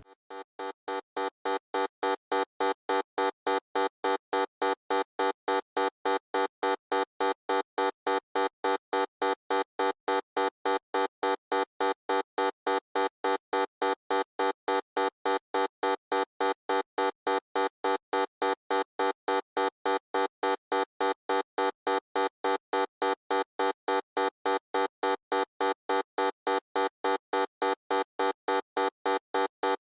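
Loud electronic buzzer beeping in rapid on-off pulses, about three a second, a harsh tone full of overtones. It swells up over the first two seconds, then repeats evenly.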